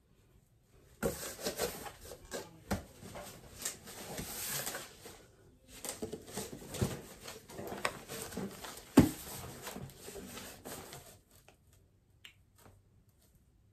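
Plastic mailer bag crinkling and cardboard box flaps scraping and knocking as an opened shipping box is handled and shifted, an irregular rustle with many small clicks and one sharper knock. It starts about a second in and stops a couple of seconds before the end.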